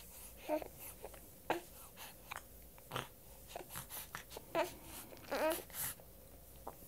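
Baby with the hiccups: short, sudden hics at irregular intervals of about a second, mixed with brief squeaky little voice sounds and mouth smacking.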